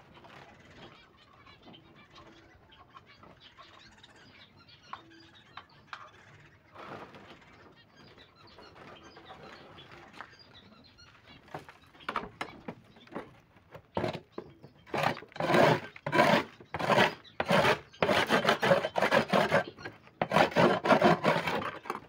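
A small metal trowel scraping bird droppings off a board cage-floor liner into a bucket: a run of loud, rough scrapes, one after another, starting about halfway through and coming thick and fast near the end. Before that, only faint small handling knocks.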